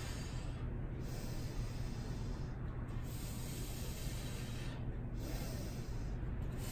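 Steady room noise: an even hiss with a low hum underneath, the upper part of the hiss dropping out briefly four times.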